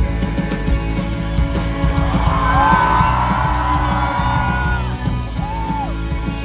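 A band playing an instrumental passage between sung lines: a steady beat and bass, with a held lead melody line from about two seconds in and a short rising-and-falling note near the end.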